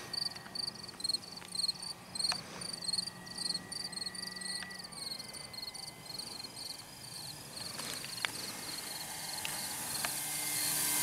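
Crickets chirping in a quick, even rhythm, several chirps a second. Under them the RC plane's electric motor hums faintly, growing louder near the end as the plane comes closer.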